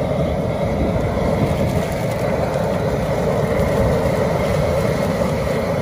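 Steady roar of a propane burner firing under a crawfish boil pot, the water at a boil.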